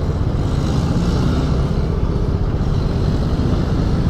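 KYMCO Super 8 125 scooter's single-cylinder four-stroke engine running steadily under way, mixed with a steady rush of wind noise over the microphone.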